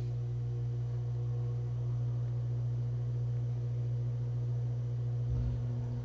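A steady low hum with fainter higher overtones, holding at an even level.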